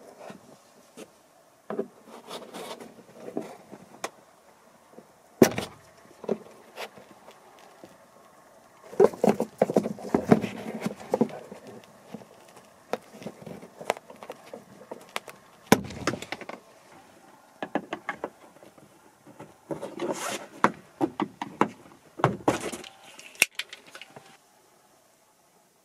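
Plastic interior trim being worked with hand tools: irregular clicks, taps and short scraping, rattling spells as a screwdriver pries open the covers of a Mercedes W212 E-Class roof grab handle and a bit driver unscrews its fasteners, with a few sharp snaps among them.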